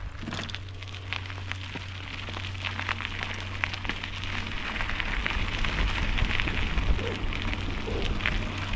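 A bicycle riding along a path: a steady crackle of tyres rolling over grit, with wind rumbling on the microphone, growing slowly louder.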